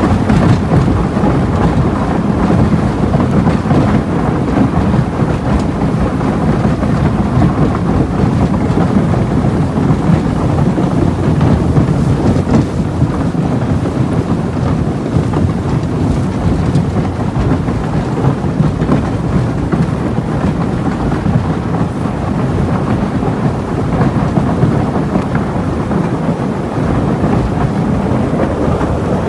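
A boat pushing through broken ice: a loud, steady rumble with a dense crackle of ice floes grinding and breaking against the hull.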